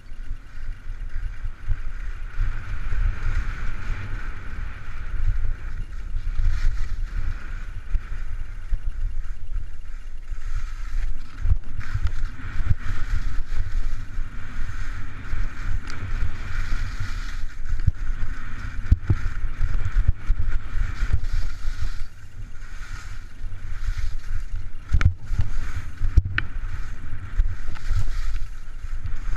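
Skis sliding and scraping over chopped-up, crusty snow on a downhill run, a continuous hiss, with wind rumbling on the camera microphone. A couple of sharp knocks come a few seconds before the end.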